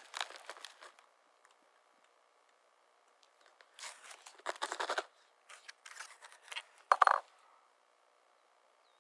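Clusters of small sharp clicks and clinks with scraping, as metal gear is handled: one brief burst at the start, then two busier bursts about four and six to seven seconds in, the loudest hit near seven seconds.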